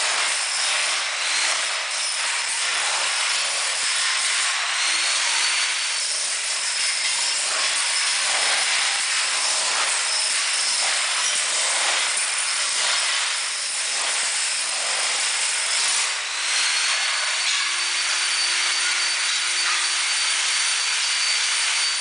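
Jackhammer mounted on a trolley chiselling floor tiles off, a loud, steady hammering rattle mixed with scraping and breaking tile.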